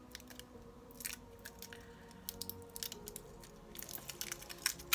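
Small cosmetics package being handled and opened by hand: a string of irregular crinkles and sharp clicks, louder toward the end. Soft background music runs underneath.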